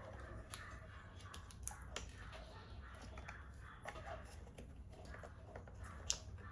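Faint small clicks and taps as parts are fitted inside an opened MacBook Pro, with the sharpest click about six seconds in, over a low steady hum.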